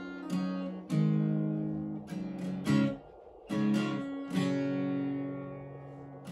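Acoustic guitar chords strummed one at a time, each left to ring and fade, with a short break about three seconds in before the strumming resumes.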